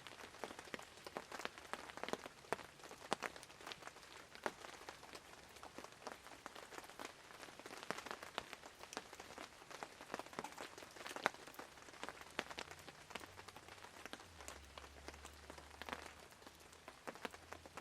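Steady rain falling, with many irregular sharp drops tapping on nearby surfaces.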